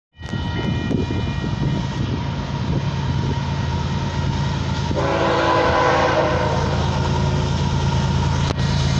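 Canadian Pacific diesel freight locomotive approaching, its low rumble growing slightly louder. About five seconds in, its air horn sounds a chord blast of about two seconds that fades away.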